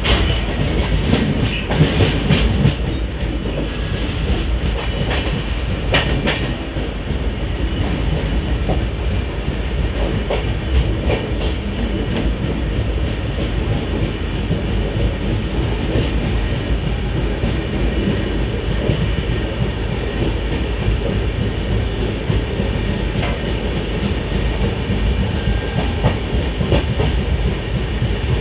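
Gujarat Sampark Kranti Express coach running at speed, heard at an open doorway: a steady rumble and rush of wheels on the track, with irregular sharp clacks over rail joints, thickest in the first few seconds and again about six and ten to twelve seconds in.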